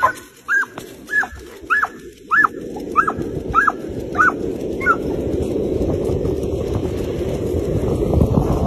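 A dog yipping and whining in short, eager, up-and-down calls, about eight of them roughly every half second, which die away after about five seconds. A rushing noise then grows steadily louder.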